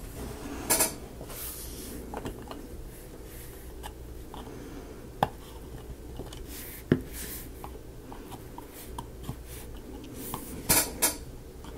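Thin laser-cut plywood model pieces being handled and fitted together: soft rubbing and scattered light clicks and taps, with sharper clicks about a second in, twice in the middle and a close pair near the end.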